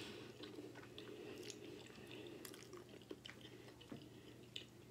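Faint chewing of a mouthful of penne pasta in meat sauce, with small mouth clicks scattered throughout.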